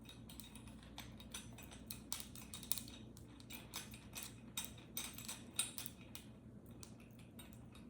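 Faint, irregular small clicks and light rattling from handling the desk lamp's clamp and fittings, over a steady low hum.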